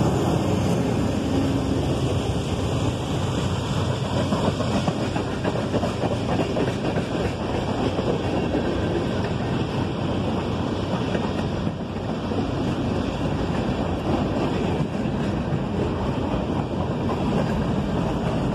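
Norfolk Southern freight train rolling past, a steady rumble of wheels on rail, mixed with wind buffeting the microphone.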